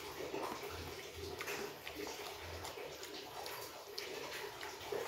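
A person chewing a mouthful of rice close to the microphone, with wet smacking mouth sounds and irregular soft clicks.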